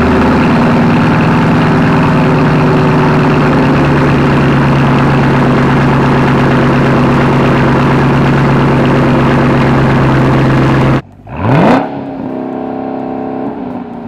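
Chevrolet Camaro ZL1 1LE's supercharged 6.2-litre V8 running loud and steady through an AWE Track Edition exhaust, its pitch stepping up just after the start. About eleven seconds in the sound cuts off abruptly. Then the engine revs up sharply in a quick rising burst, the loudest moment, and runs on steadily with its pitch starting to fall near the end.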